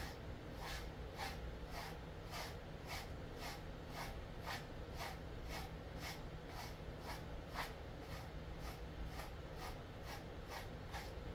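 Pet grooming brush drawn through a dog's thick Jindo-mix coat in steady, even strokes, each a short brushing swish, about two a second. A low steady hum runs underneath.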